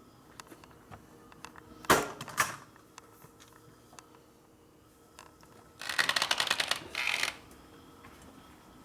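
Small metallic clicks and two sharp knocks about two seconds in, then a fast run of clicking for about a second and a half, as tools and a metal oil line are worked by hand on the motorcycle frame.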